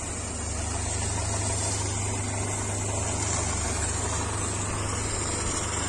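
Motor-driven high-pressure water pump running steadily with a low hum, under the even hiss of its water jet blasting into a sand bank to cut the sand loose.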